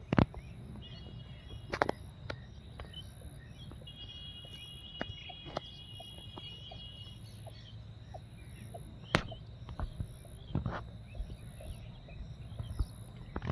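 Outdoor pond-side ambience: a steady low rumble of wind on the microphone, a high chirp repeating evenly throughout, and a couple of thin held calls early on. A few sharp knocks come through, the loudest about nine seconds in.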